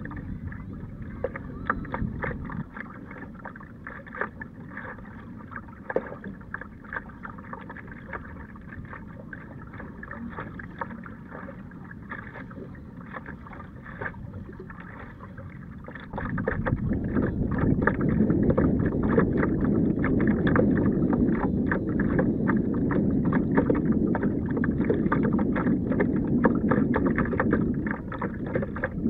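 Water lapping and splashing against a kayak hull as it moves through the water, with many small sharp splashes. About halfway through, a louder steady low rush of wind on the microphone comes in over the water noise.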